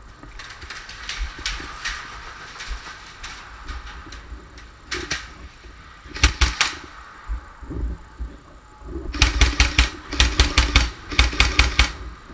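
Airsoft rifle firing in short bursts of rapid shots: a quick burst of about three shots about six seconds in, then three bursts of about five shots each near the end. Fainter scattered shot-like clicks come in the first few seconds.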